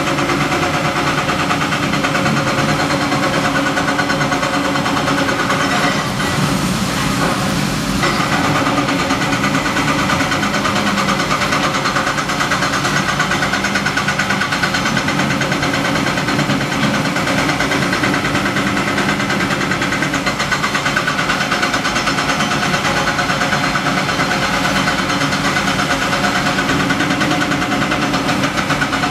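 Caterpillar 330D L hydraulic excavator's six-cylinder diesel running steadily under working load as it digs, with a brief noisy rush about six seconds in that lasts a couple of seconds.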